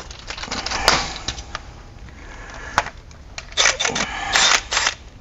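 Ratcheting wrench clicking in short runs of strokes as a bolt is tightened down, with a few sharp metallic clicks. The clicking is busiest near the end.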